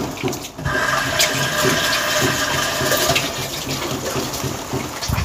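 Kitchen tap running steadily as hands are washed under it. The water comes on under a second in.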